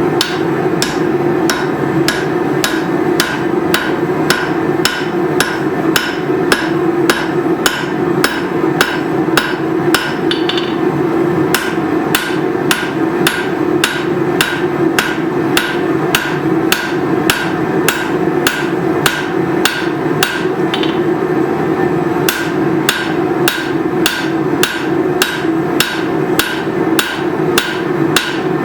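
Hand hammer striking hot leaf-spring steel on an anvil in a steady rhythm of about two blows a second, over a constant low drone.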